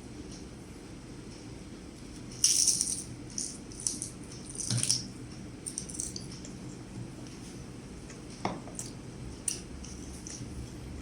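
Light, intermittent crackling and rustling of a crisp seaweed snack being handled and bitten, in short clusters about two and a half and five seconds in, then a few single clicks.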